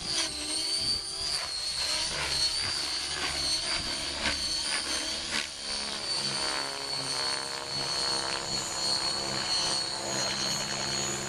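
Radio-controlled helicopter flying aerobatics: a steady high-pitched rotor whine, with repeated short rushes of blade noise in the first half as it manoeuvres.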